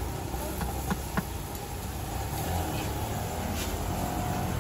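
Busy street ambience: a steady low rumble of traffic, with two sharp clicks about a second in.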